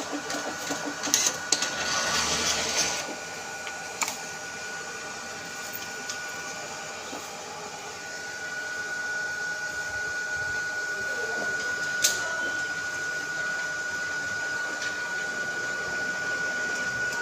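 A small motorised machine running on test after repair, with a steady high whine throughout. There is a louder rushing stretch from about one to three seconds in, and sharp clicks about one, four and twelve seconds in.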